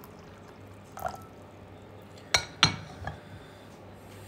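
Two sharp taps or clinks about a third of a second apart, with a fainter one just after, over a low steady room hum.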